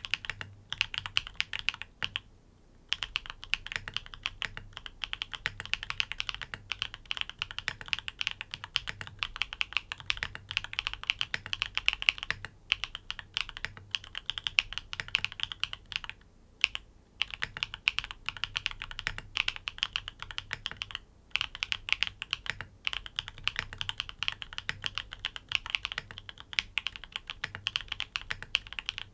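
Fast typing on a NEO80 mechanical keyboard with tactile switches in a gasket-jacket mount: a dense, continuous run of keystrokes with a couple of short pauses.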